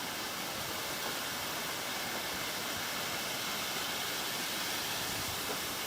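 Waterfall running full after heavy rain: a steady rush of falling water.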